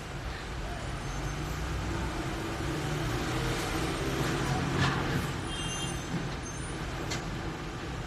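Road traffic heard from inside a moving car: a steady road rumble, with the engine of a large vehicle alongside swelling about two seconds in and fading after about six seconds, and a sharp click near the middle.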